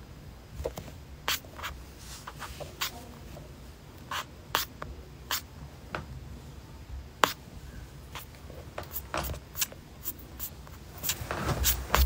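Irregular sharp clicks and taps close to a phone's microphone, one or two a second, with some rustling near the end.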